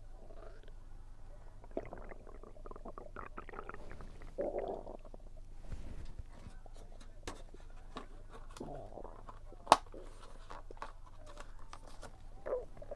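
A person's stomach gurgling and rumbling in several bubbly swells, recorded close to the belly during a meal, which the uploader puts down to low air pressure. Sharp clicks come in between, one much louder about ten seconds in.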